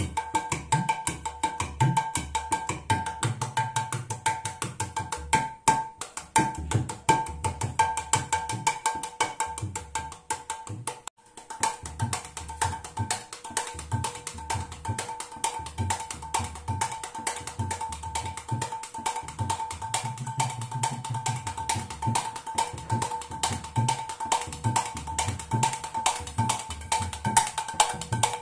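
A two-headed mridanga drum played with both hands in a fast, continuous rhythm. Crisp strokes ring at a steady high pitch from the small head, mixed with low strokes from the bass head, some of them held for a second or two. There is a brief break about eleven seconds in.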